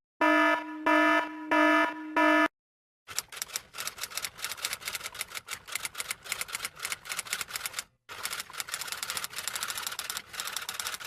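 A sound effect: four short, pitched electronic beeps, then after a brief pause a long run of rapid typewriter-like key clicks that breaks off once about halfway through.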